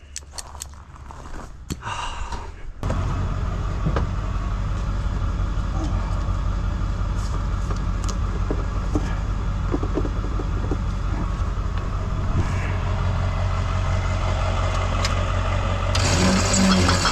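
A motor switches on about three seconds in and runs with a steady low hum, with a few light clicks and knocks over it.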